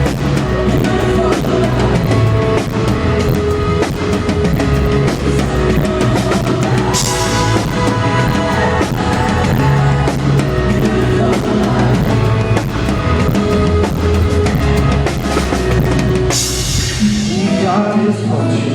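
Live pop-rock band playing an instrumental passage with drum kit, bass and guitar, with a cymbal crash about seven seconds in and another near the end, after which the bass and drums drop out and the guitar carries on.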